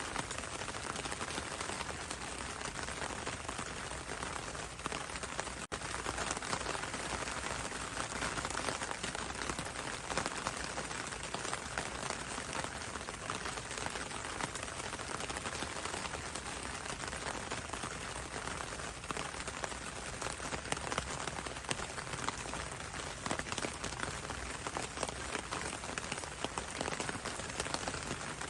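Steady rain falling on leaves, a dense, even patter of drops. A split-second dropout comes about six seconds in.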